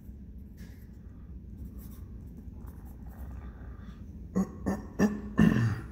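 Graphite pencil writing a word by hand on paper, a faint scratching. A few short vocal sounds come in near the end, louder than the pencil.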